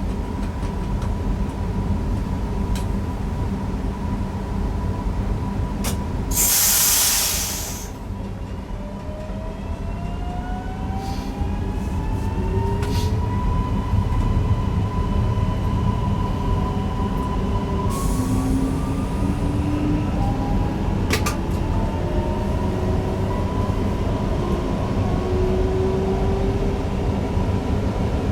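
Newag Impuls EN63 electric multiple unit running, heard from the driver's cab: a steady rumble under a traction drive whine whose several tones glide upward as the train picks up speed. A loud hiss lasting about a second and a half comes about six and a half seconds in, and there are a few sharp clicks.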